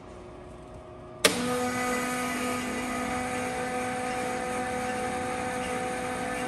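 LeBlond sliding-bed engine lathe switched on with a sharp clack about a second in, then its drive running steadily: a hum carrying several held tones.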